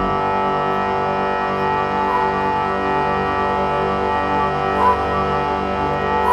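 Background music: a dense bed of many sustained, held tones. The deep bass drops away as it begins and returns right at the end.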